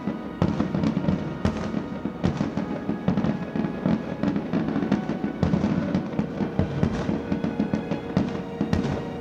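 Aerial firework shells bursting in quick succession, a dense run of bangs and crackles several times a second, with music playing underneath.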